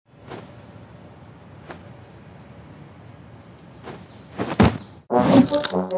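Faint outdoor background noise with a quick run of short, high chirps. Over the last two seconds, two women laugh loudly.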